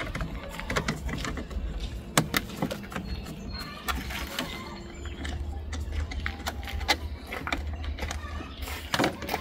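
Hand tools clicking and clinking against metal as screws are worked loose on a compact tractor's side panel, with a few sharper clicks, over a low steady rumble.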